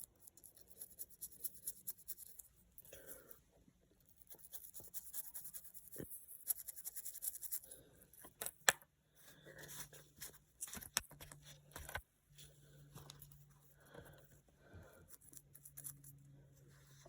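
Faint scratching and scrubbing against a small coin, with scattered light clicks, as dirt is worked off it by hand.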